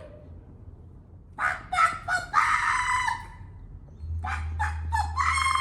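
Rooster crowing twice; each crow is a few quick short notes leading into one long held note.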